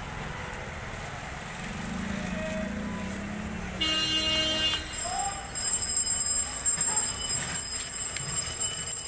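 Outdoor traffic and crowd ambience with faint voices. A short vehicle-horn toot sounds about four seconds in, and thin, steady high tones join from about halfway.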